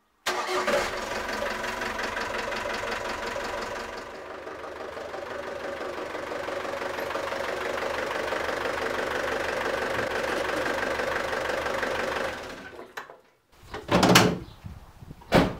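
Ford Transit 2.5DI four-cylinder diesel engine idling steadily with a clattering knock, fading out about twelve seconds in. Two loud thuds follow near the end.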